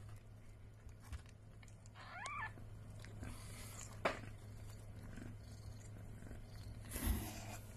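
Mother cat purring steadily beside her newborn kittens. About two seconds in, one kitten gives a short, thin squeak that rises and falls. There is a sharp click about four seconds in and a brief rustle near the end.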